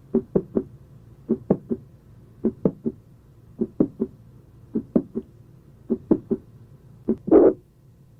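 Recorded heart sounds of mitral valve prolapse with mitral regurgitation, at about one beat a second: each beat is a quick group of three short sounds, the first heart sound, a mid-systolic click and the second heart sound. Near the end a louder, longer high-pitched murmur follows the click.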